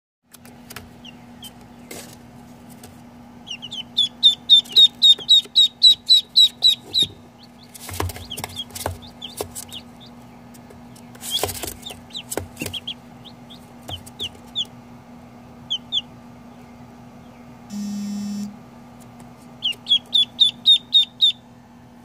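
Baby chicks and ducklings peeping: quick runs of high, short peeps, about four a second, with scattered single peeps and a few knocks between them, over a low steady hum. A short buzz sounds about three-quarters of the way through.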